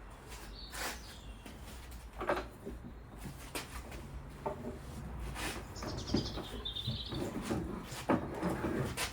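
Scattered knocks and clunks of wooden cabinet parts being handled and set down during assembly of a workshop stand, with a short high chirp about six seconds in.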